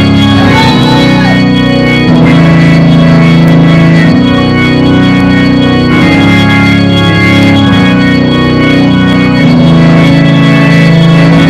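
Organ music: loud sustained chords that change every two seconds or so.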